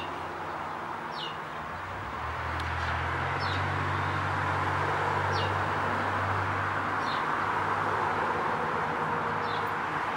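A bird repeatedly gives a short, high, downward-sliding chirp, about six times, one every second or two, over a steady background hiss. A low rumble swells in about two seconds in and fades out near seven seconds.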